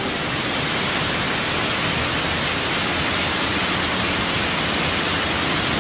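Steady rush of spraying and falling water from an indoor water park's jets and slides, an even hiss with no single splash standing out.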